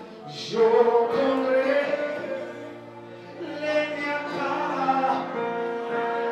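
A man singing a worship song into a handheld microphone, amplified through the church's sound system, over sustained backing chords; the notes are held long, with a short lull in the middle before he comes back in.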